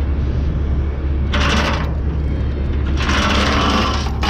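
Steel transport chain rattling and clanking against the roller's steel frame as it is handled for chaining down, in two bursts, one about a second and a half in and a longer one from about three seconds in, over a steady low engine hum.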